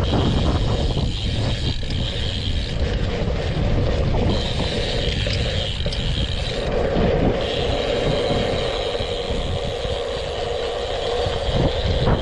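Wind buffeting a chest-mounted camera microphone as a BMX race bike rolls over a dirt track, with tyre noise and a steady high whir that drops out briefly twice.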